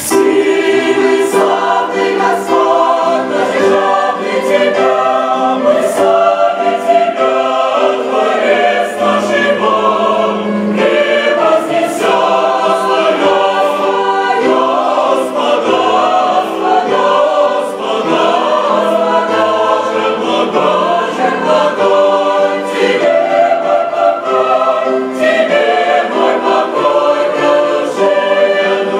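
Large mixed choir of men's and women's voices singing a Russian-language hymn in full, sustained chords, loud and steady throughout.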